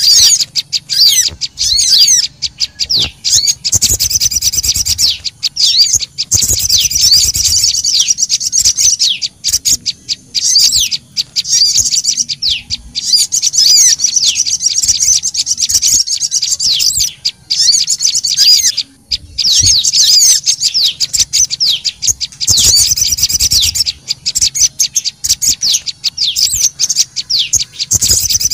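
Dense, busy chirping and twittering of small songbirds: a bird-lure (pikat) recording mixing the calls of sogon and prenjak lumut. Rapid, high sweeping notes come in long runs, with a few short breaks.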